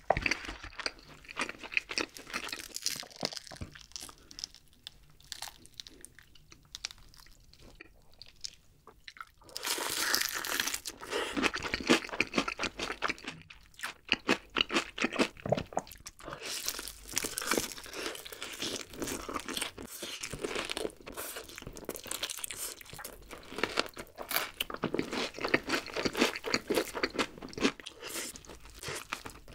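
Close-miked crunching and chewing of crispy fried chicken (Kyochon Honey Combo): bites crackle through the fried coating. A softer, quieter stretch of chewing comes a few seconds in, then loud crunching returns about a third of the way through and again past the middle.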